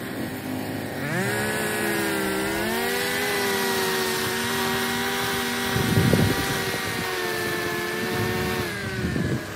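Petrol string trimmer engine revving up about a second in, held at high speed while the line cuts grass along the edge of a concrete sidewalk, then easing off near the end. A rougher burst of noise comes about six seconds in.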